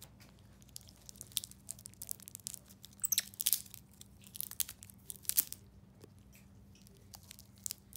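White-faced capuchin monkey gnawing a hard lollipop still half in its plastic wrapper: irregular crackling of the wrapper and crunching clicks of teeth on the candy, busiest in the middle.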